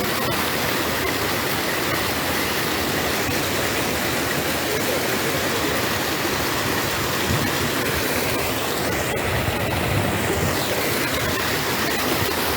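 Floodwater draining out of a swamp, rushing steadily.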